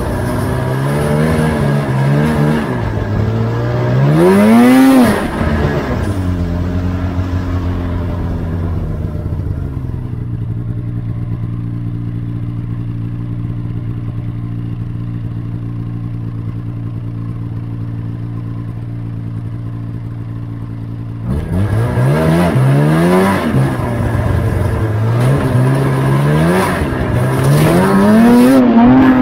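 A motor vehicle engine revving up in rising surges and easing off, then running at a steady note for about ten seconds before speeding up again in several quick climbs in pitch near the end.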